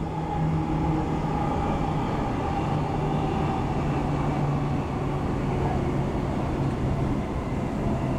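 Steady running noise inside a Queensland Rail electric train moving along the track, with a low steady hum under the rumble and a fainter higher tone that fades in the first few seconds.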